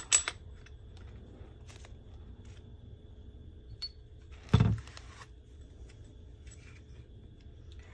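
Metal and plastic parts of a folding survival shovel clicking and clacking as they are handled and pulled apart, with one dull thud about halfway through as a piece is set down on the table.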